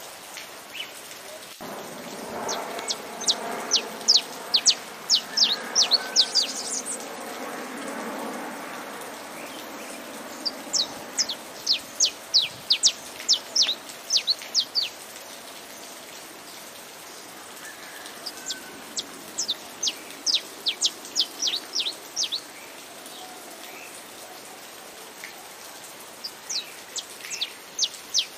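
Saffron finch singing in four bouts of rapid, sharp high notes, with pauses between them, over a steady hiss of rain.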